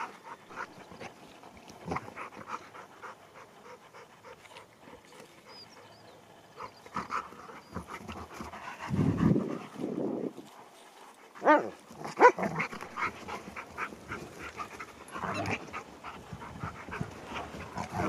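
Dogs play-fighting: panting, with a few short dog vocal sounds, the loudest about two-thirds of the way through.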